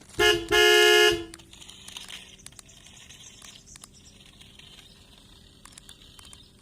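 A horn sounds twice, a short toot then a longer blast, stopping about a second in. Faint outdoor ambience follows, with scattered small clicks and a steady high hiss.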